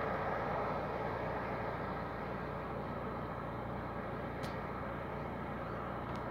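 Steady road traffic noise, even and unbroken, with two faint clicks, one about four seconds in and one near the end.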